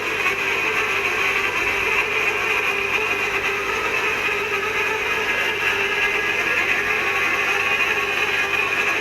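Background music with plucked guitar, steady and unbroken.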